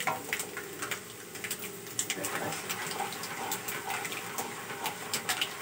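Dals, peanuts and mustard seeds frying in ghee in a non-stick pan: a steady sizzle with frequent sharp crackles and pops, stirred with a wooden spatula.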